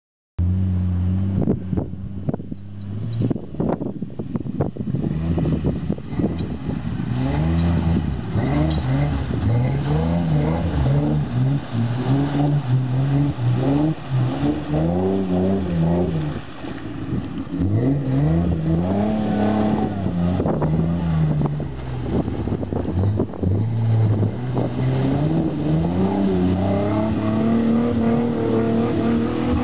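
Jeep Wrangler YJ engine revving up and down over and over as the Jeep, on 40-inch mud tires, churns in deep mud and sits bogged to the body. There are a few sharp cracks in the first few seconds.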